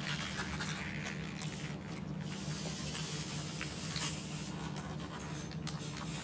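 Soft rustling and rubbing of paper napkins and a tortilla-wrapped burrito being handled, with small scattered clicks, over a steady low hum.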